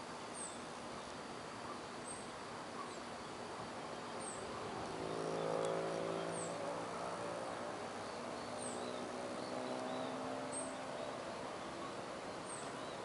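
A motor vehicle's engine passing, growing louder to a peak about five seconds in and then fading, over steady outdoor background noise. A short high-pitched chirp repeats every one to two seconds throughout.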